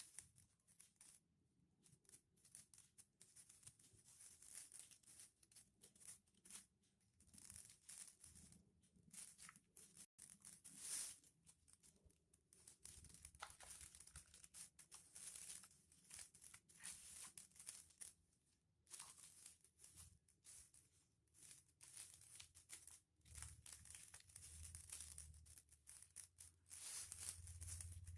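Foil-covered paper being folded and creased by hand: faint crinkling and rustling in short, irregular bursts, the sharpest about eleven seconds in.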